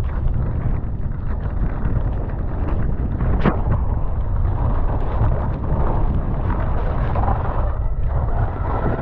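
Wind buffeting the microphone of a camera on a downhill mountain bike ridden fast down a dirt trail, with the steady rumble of the tyres and bike over the ground. A single sharp knock sounds about three and a half seconds in.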